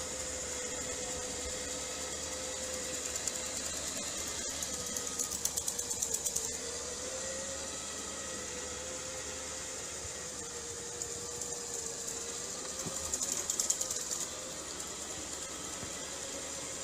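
Robot vacuum cleaner running: a steady motor whir whose pitch wavers slightly, with a high hiss from the suction. About five seconds in, and again near the end, there is a brief spell of fast rattling.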